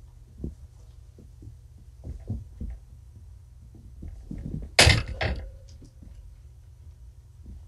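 Soft thumps of kittens running and pouncing on a rug-covered floor, with a louder scuffling clatter about five seconds in, over a low steady hum.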